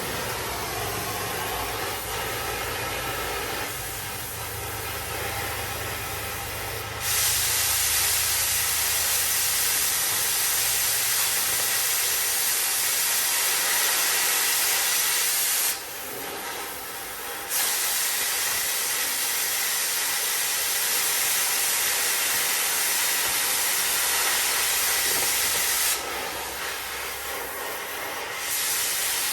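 Cutting torch hissing steadily as it cuts through steel truck frame. The hiss jumps much louder about seven seconds in and stays loud, with two short drops.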